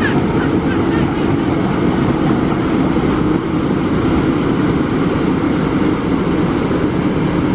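Heavy diesel engines of a Komatsu PC200 excavator and a concrete mixer truck running steadily at close range.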